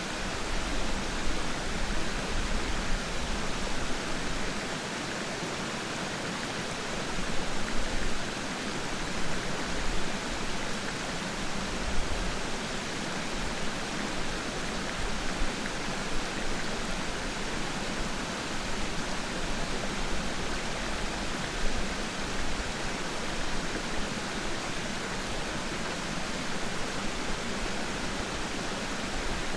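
Peiran Falls: the steady rushing of falling and flowing water, with small surges in level.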